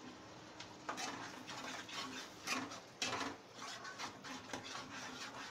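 Spatula stirring and scraping thick tomato masala in a nonstick kadhai: a run of scrapes, about two a second, starting about a second in.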